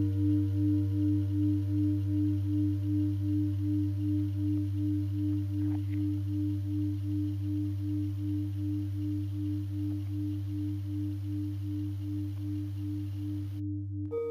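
Singing bowl ringing on after a strike, a deep hum with a steady wobble about three times a second, slowly fading.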